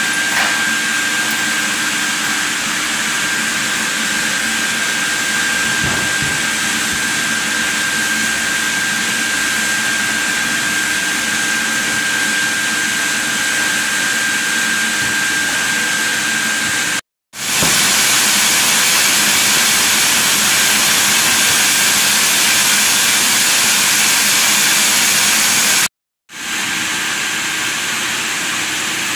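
Sawmill machinery running steadily: a continuous hiss with a thin high whine, cutting out briefly twice, about seventeen and twenty-six seconds in.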